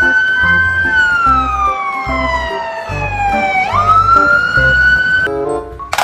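Fire engine siren wailing: the tone holds high, falls slowly for about three seconds, then sweeps quickly back up and holds before cutting off near the end. Background music with a low beat plays underneath.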